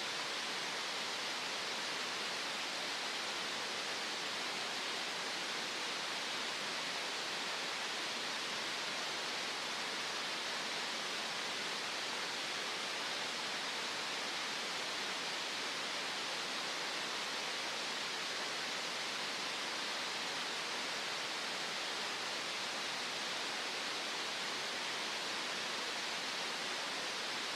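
Green noise: a steady, unchanging hiss, strongest in the upper-middle range and thin in the bass.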